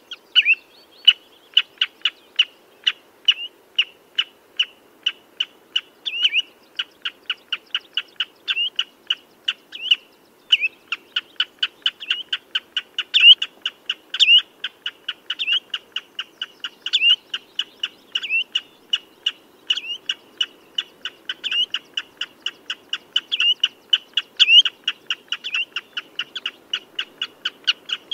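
Common redshank calling: a rapid, continuous series of short, piping notes, several a second, with some louder notes slurring downward.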